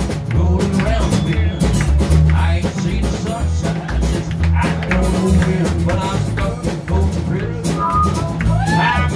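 Live music: a man singing while strumming an acoustic-electric guitar, over a steady, heavy low-end beat.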